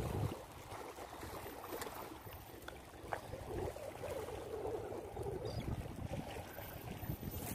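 Wind buffeting the microphone and small waves lapping at the rocks of a seawall, with a few faint clicks.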